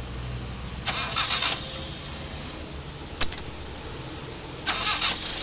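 Car engine being started after its timing belt was re-timed: a short burst of cranking, a sharp click, then the engine catches near the end and keeps running. It starts, a sign that the new belt timing is correct.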